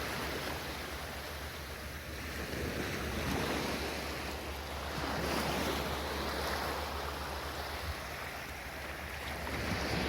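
Sea waves washing onto a beach at low tide, the surf swelling and falling back about every three seconds, with a low rumble of wind on the microphone.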